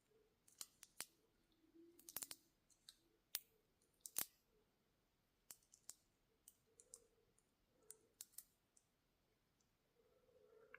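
Faint, irregular small clicks and ticks of a metal toggle clasp and bracelet being handled as the toggle bar is worked through its ring to fasten it.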